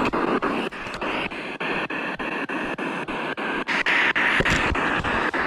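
P-SB7 spirit box sweeping through radio stations: choppy radio static cut into short slices about eight times a second. A faint steady tone runs through the middle, and the static gets louder about four seconds in.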